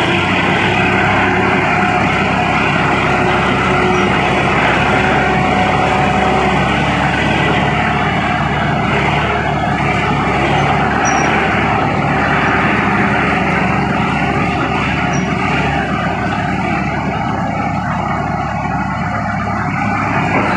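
Bulldozer's diesel engine running steadily under work while its blade cuts a pit in the ground.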